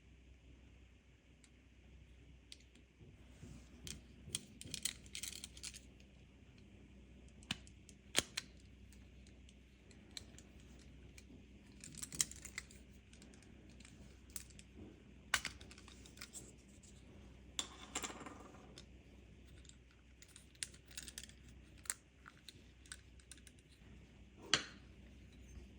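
Scattered small clicks and taps of a car key fob's plastic shell and parts being handled and worked on by hand, with a brief scraping rasp partway through.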